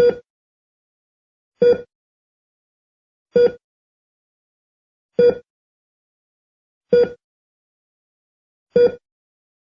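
Heartbeat sound effect made of short, identical pitched beeps like a heart monitor's, six of them about 1.7 seconds apart, the gaps growing slightly longer as the beat slows toward stopping.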